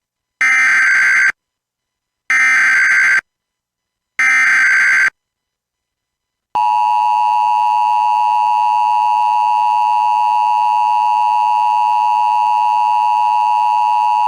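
Emergency Alert System header opening a Child Abduction Emergency (Amber Alert): three bursts of SAME digital data tones, each just under a second long and about two seconds apart, then the steady two-tone EAS attention signal starting about six and a half seconds in and holding for about eight seconds.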